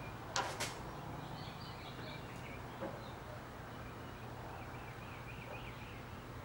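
Quiet workshop room tone with a steady low hum and faint bird chirps, broken by two light clicks about half a second in.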